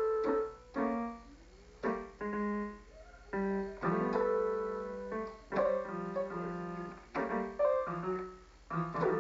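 Electronic keyboard with a piano sound, its keys slapped at random by a baby's hands: about a dozen irregular clusters of notes sounding together, each ringing briefly and fading, with no tune.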